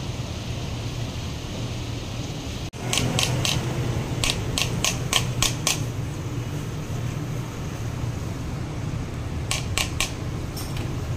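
Light metal-on-metal taps as a new axle oil seal is tapped into the Mazda CX-5's front differential housing: a run of about nine quick taps starting about three seconds in, then a few more near the end. A steady low hum runs underneath.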